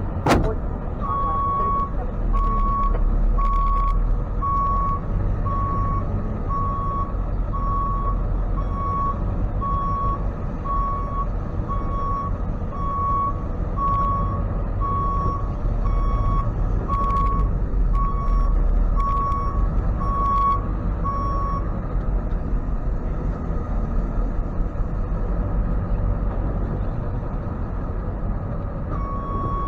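Tow truck's backup alarm beeping evenly, about a beep and a half a second, over the steady low running of its engine. The beeping stops about two-thirds of the way through and starts again near the end. A sharp knock sounds right at the start.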